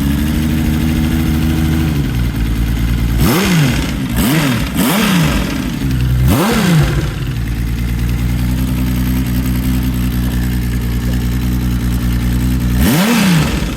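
Kawasaki KZ1300 inline-six motorcycle engine idling steadily, blipped quickly four times between about three and seven seconds in and once more near the end. The engine is freshly rebuilt, and its owner hears an unexplained weird noise from it.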